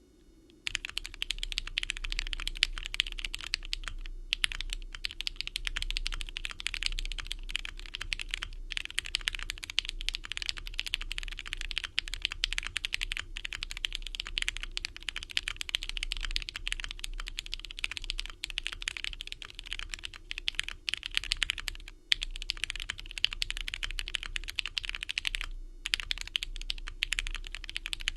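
Continuous fast typing on an Inky60 custom mechanical keyboard with ThicThock Marshmallow switches, plateless and gasket-mounted with Poron case foam: a dense run of keystrokes and keycap clacks, broken by a few short pauses.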